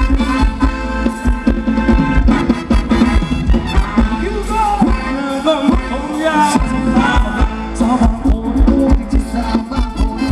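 Thai ramwong band playing live dance music over loudspeakers, with a steady drum beat. A singing voice carries the melody through the middle.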